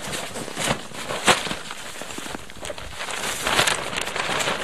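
Tent fabric panel being lifted and handled, rustling and flapping, with a sharp snap about a second in and a louder flurry of rustling near the end.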